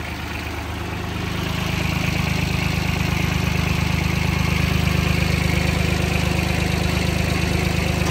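ISEKI 155 mini tractor's three-cylinder diesel engine running as the tractor is driven on a speed test, growing louder over the first two seconds and then running steadily.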